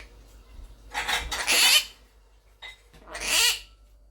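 Quaker parrot (monk parakeet) giving two loud, raspy calls: a longer one about a second in and a shorter one about three seconds in.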